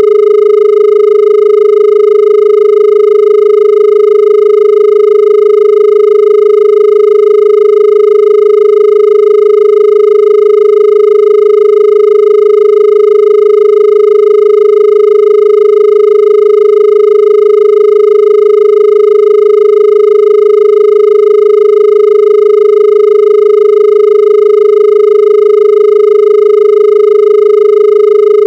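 Indian telephone dial tone: a single steady tone that never breaks, with fainter overtones above it.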